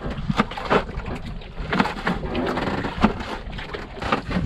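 Kitchen knife chopping through a chili pepper and tomatoes onto a plastic cutting board: a handful of sharp, irregular taps, over a steady low rumble.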